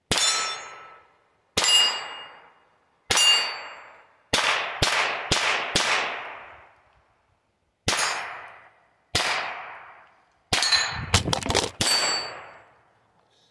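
Ruger Charger .22 LR semi-automatic pistol firing about a dozen shots. They come a second or more apart, with a quicker run of four in the middle and a rapid cluster near the end. Each shot trails off over about a second, several with a brief ringing tone.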